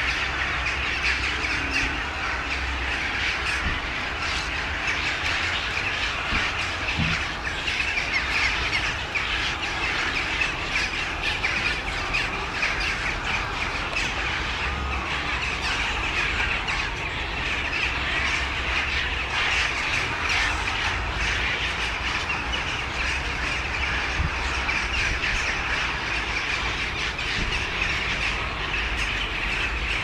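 Continuous, dense din of hundreds of birds calling as a mixed roost of jackdaws, glossy ibises, cattle egrets and egrets comes in to sleep, over a low rumble.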